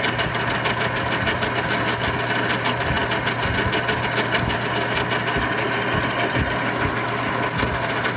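Small Jet metal lathe running under power: a steady motor hum under a rapid, even mechanical clatter.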